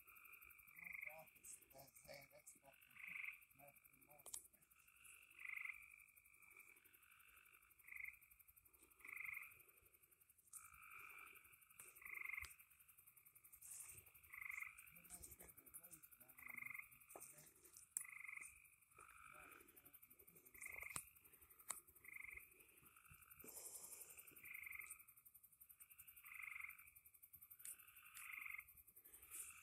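Faint frogs calling at night: short calls repeating about every one to two seconds, with a few faint clicks.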